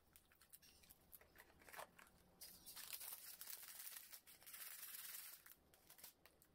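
Faint crinkling of plastic and foil food packaging being handled, with a louder stretch of rustling lasting about three seconds in the middle.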